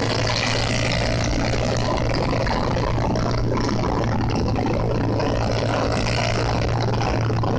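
Motorcycle riding at a steady cruising speed: engine running with a steady low hum, and wind and road noise rushing over the onboard camera's microphone.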